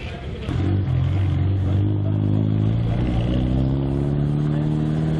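A small racing touring car's engine running steadily at a raised idle close to the microphone, starting about half a second in, its pitch creeping slowly upward.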